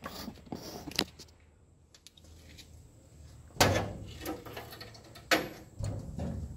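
Hood of a Datsun 620 pickup being unlatched and raised: a few light clicks, then a sharp metal clunk about three and a half seconds in and another a couple of seconds later, with rattling after each.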